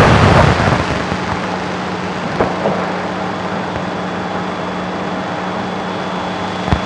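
Steady hiss with a low hum, marked by a short click about two and a half seconds in and another near the end.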